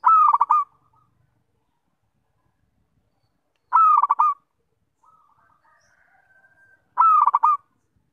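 Zebra dove (perkutut) cooing: three short, stuttering coo phrases about three and a half seconds apart, with a fainter, longer call between the second and third.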